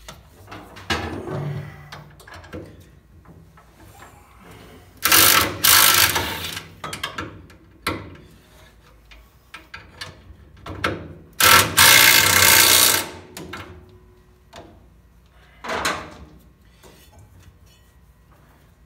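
Cordless power tool run in three or four short bursts, driving mounting bolts tight; the longest burst, a little past halfway, lasts about a second and a half. Light knocks of metal come between the bursts.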